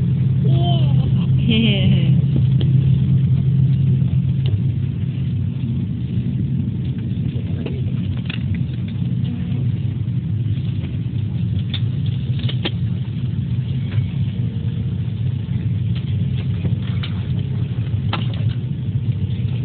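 Steady low engine drone heard from inside a vehicle's cabin, with a brief voice near the start and a few light clicks.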